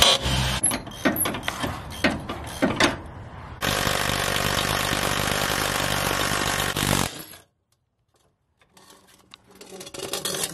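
A red cordless ratchet runs steadily for about three and a half seconds, backing out the bolts that hold a pickup's running-board bracket, and cuts off suddenly. Before it come a few seconds of irregular metal clicks and clanks from the work on the bracket.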